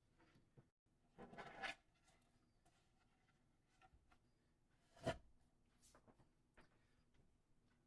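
Mostly near silence, broken by small handling sounds at a workbench: a brief rustling scrape about a second in and a single light knock about five seconds in.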